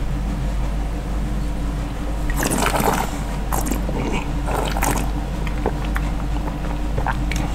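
Red wine being slurped and swished in the mouth while tasting: two noisy sucking slurps, about two and a half and four and a half seconds in, followed by a few small wet mouth clicks.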